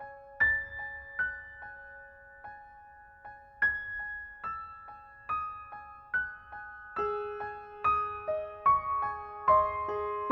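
Background piano music: a slow, gentle melody of single struck notes that ring and fade, with lower accompanying notes coming in about seven seconds in.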